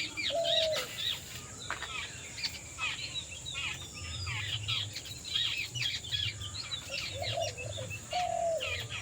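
Several birds calling together: dense, rapid high chirps and twitters throughout, with a short, lower call that falls at the end, heard once near the start and repeated about once a second near the end.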